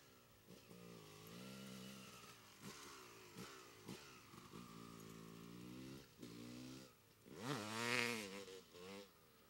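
Dirt bike engine revving up and down as it rides over grass, its pitch rising and falling with each change of throttle. Near the end comes a hard burst of throttle, the loudest moment, that kicks up dirt.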